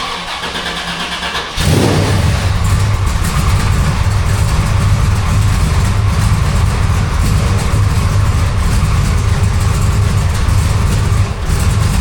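A 1969 Chevy C10's 454 big-block V8 is cranked by the starter and catches about one and a half seconds in. It then runs loud and steady through temporary Cherry Bomb glasspack mufflers.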